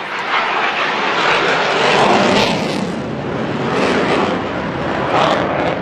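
Airplane flying over: a loud, rushing engine noise that swells and eases in waves.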